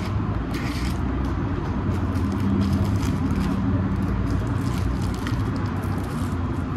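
Crinkling and rustling of plastic and soft wrapping as a pair of eyeglasses is unwrapped, over a steady low background rumble.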